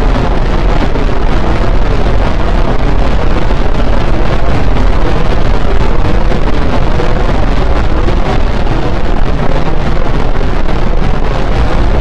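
Harsh noise music: a loud, unbroken wall of distorted noise, heaviest in the bass, with no clear melody or beat.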